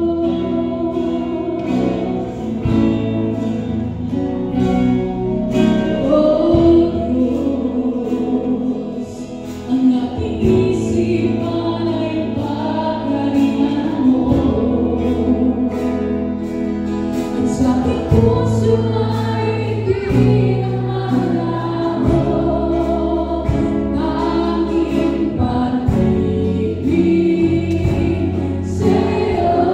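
Live praise and worship band playing a gospel song: singers at microphones leading over electric and acoustic guitars, bass guitar and drums, with steady drum hits through it.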